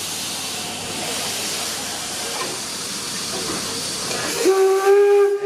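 Steady hiss of steam from D&LN No. 7, an 1897 Baldwin 4-4-0 steam locomotive. About four and a half seconds in, its steam whistle starts blowing one steady note and is still sounding at the end.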